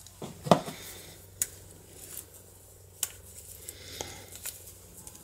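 Sharp metal clicks and light handling noise from a freshly reassembled DOM IX double lock cylinder with a gear-wheel cam as it is picked up and its key is worked, about four separate clicks a second or so apart. The cylinder still turns in one direction but not the other.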